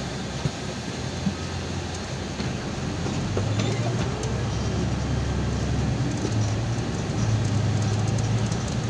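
Golden Dragon XML6125 city bus running along the road, heard from inside the passenger cabin: a steady engine hum with road noise, the engine note growing stronger about three seconds in.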